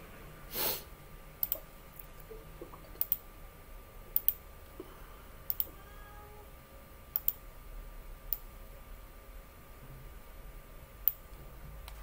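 Sharp clicks at a computer, mostly in close pairs, every second or so, with one louder brief knock about half a second in, over a faint steady hum.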